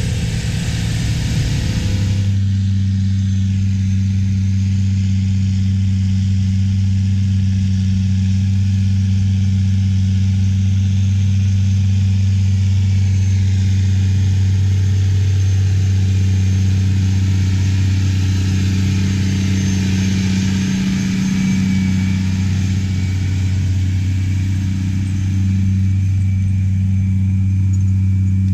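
Big Bud four-wheel-drive tractor's large diesel engine running steadily under load while pulling a wide moldboard plow: a deep, even drone that holds at one pitch.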